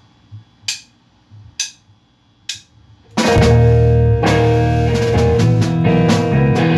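Four sharp clicks, evenly spaced about a second apart, count in a song; then, about three seconds in, a rock band comes in loud with electric guitar and drum kit.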